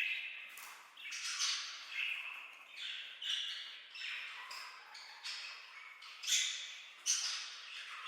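Budgerigars chattering: a running string of short, high, scratchy calls and chirps, a new one every half second or so.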